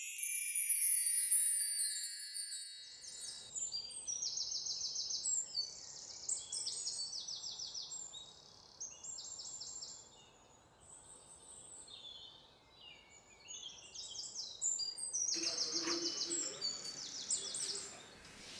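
Birds chirping in repeated short trilled calls over a faint outdoor background. It opens with a shimmering, chime-like cascade that falls in pitch and fades out about three seconds in.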